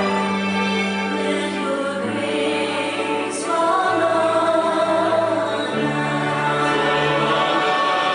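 Church choir singing a slow hymn in long held chords, the harmony shifting every couple of seconds.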